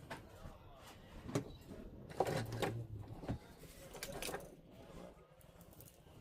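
Small tools and phone parts being handled during a smartphone teardown: scattered clicks, taps and scrapes, with a louder cluster of knocks about two to three seconds in.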